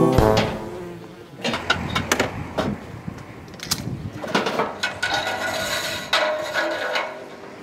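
Tools rattling in a plastic toolbox and an aluminium extension ladder being handled: scattered knocks and clanks, with a buzzing metal scrape in the second half as the ladder is set up.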